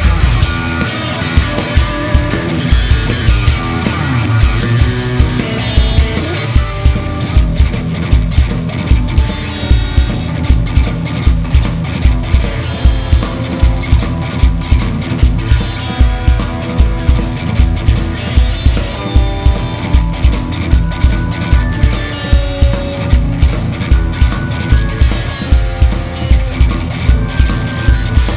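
Live rock band playing an instrumental stretch: an electric guitar lead over a steady drum beat of about two hits a second, with bass underneath.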